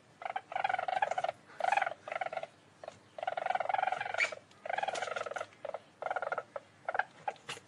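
A small mustelid of the weasel family giving a string of rapid, pulsed trilling calls. The calls run from a fraction of a second to about a second each, separated by short gaps.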